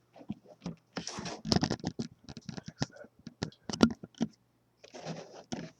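Packaging of a diecast scale model being handled and opened: irregular clicks, scratches and rustles.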